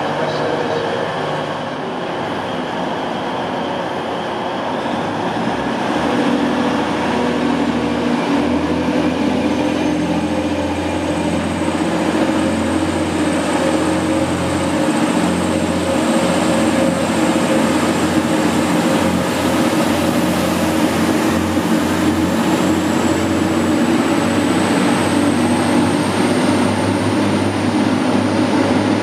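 A Class 185 Desiro diesel multiple unit's Cummins diesel engines running under power as it pulls away, the engine note strengthening about six seconds in. A high whine rises slowly in pitch above it.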